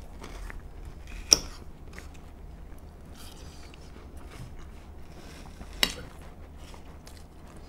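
Metal fork clinking and scraping against glass serving dishes, with two sharp clinks, one about a second in and one near six seconds, and faint small clicks in between.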